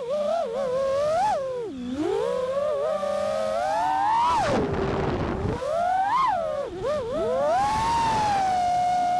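FPV quadcopter's brushless motors and propellers whining, recorded by the camera on board, the pitch sliding up and down constantly with the throttle and dropping briefly a few times.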